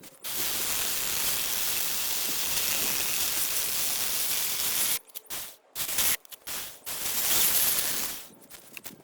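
Aerosol lubricant sprayed onto the mini chainsaw's bar and chain: one long hiss of about five seconds that cuts off suddenly, then several short bursts.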